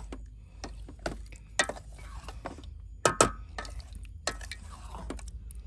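Wooden spoon stirring a thick creamy sauce in a stainless steel saucepan, scraping and knocking against the pot in irregular clicks, the loudest pair about three seconds in, over a low steady hum.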